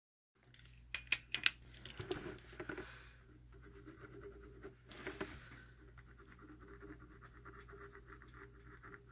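Scratchy strokes of a green colouring tool on sketchbook paper, filling in an area with rapid back-and-forth strokes from about six seconds in. A few sharp clicks about a second in, over a steady low hum.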